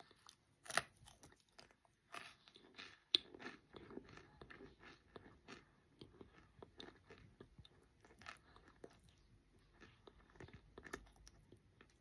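Biting into a chunk of microwave-baked cornstarch and chewing it: a soft, airy crunch, with two louder crunches about one and three seconds in, then steady small crackles of chewing. The texture is soft rather than hard-crunchy, which the maker thinks comes from wetting the starch too much.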